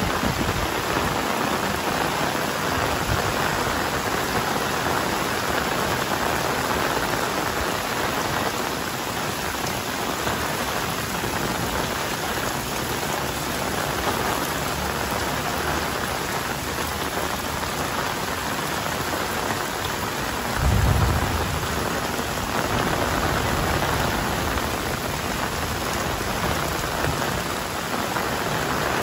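Heavy rain falling steadily, with a brief low rumble about two-thirds of the way through.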